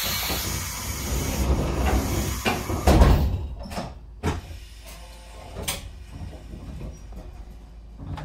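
Train's sliding doors working with a loud hiss of air, ending in a heavy thump about three seconds in. A few lighter clicks follow over the train's low rumble.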